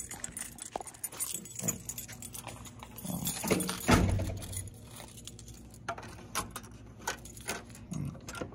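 A key ring and keycard jangling as they are carried, with scattered handling clicks and knocks and a heavier thump about four seconds in.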